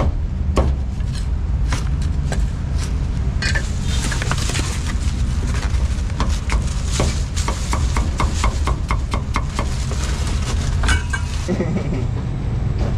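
Cleaver chopping on a wooden chopping block in quick, irregular strikes, over a steady low rumble of traffic.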